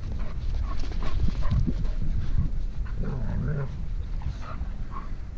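Dogs playing rough with each other, giving short, scattered play vocalizations over a steady low rumble.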